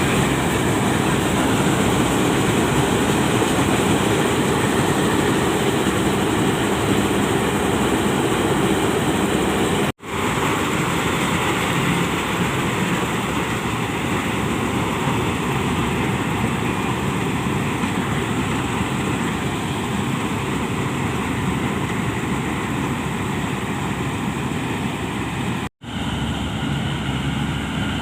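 Heavy farm machinery engines running steadily, a combine harvester or the tractors working around it in the mud. The sound cuts out abruptly and returns twice, about ten seconds in and near the end.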